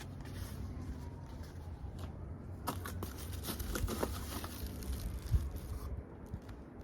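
Packaging rustling and crinkling as the box's contents are handled, with a run of crackles and small knocks between about two and a half and six seconds in.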